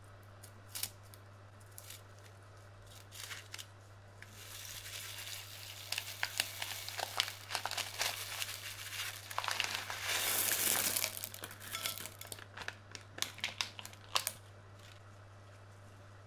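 Clear plastic piping bag crinkling in the hand while small beads pour out of its tip onto slime: a few scattered clicks at first, then a dense rustling pour that is loudest about ten seconds in, then scattered clicks again that stop about fourteen seconds in.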